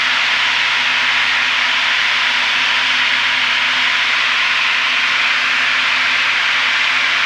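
Steady in-flight cabin noise of a Piper PA-32R single-engine plane: the engine and propeller's drone, heard as two low steady hums under a strong, even hiss of airflow, with no change in power.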